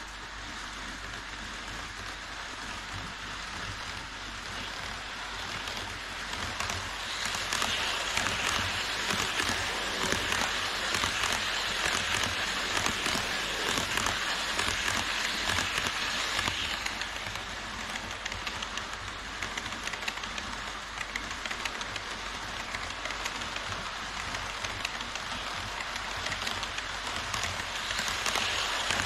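HO-scale E5 series Shinkansen model train running past on model track: a rapid rattling clatter of its wheels on the rails. It grows louder about a quarter of the way in as the train comes close, eases off past the middle, and rises again near the end.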